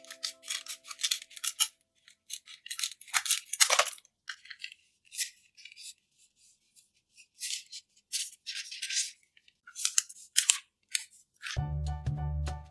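Collectible-card blind-bag packs being handled and torn open: short scratchy crinkling and tearing strokes with gaps between them and a quiet stretch in the middle. Background music with a beat comes back in near the end.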